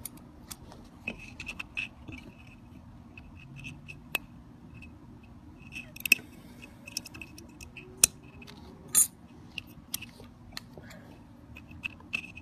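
A knife blade prying and scraping inside the plastic housing of an electronic throttle module, giving scattered sharp clicks and small scrapes at irregular intervals as the worn position-sensor film is worked loose.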